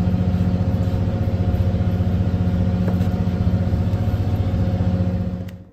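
A fishing boat's engine running steadily at idle, a deep even drone that stops abruptly near the end.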